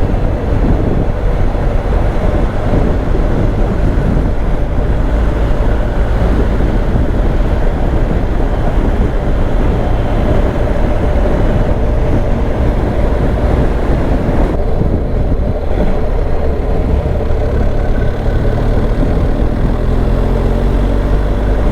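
Wind noise over the microphone and the steady running of a BMW R 1250 GS Adventure's flat-twin engine at road speed, with the engine note rising near the end.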